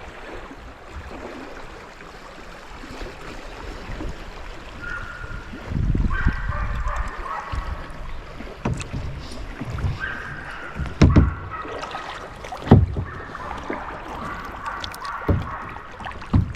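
Fishing reel being cranked in stretches, a steady whir, while the kayak knocks and bumps, over the steady rush of a high, fast-running river.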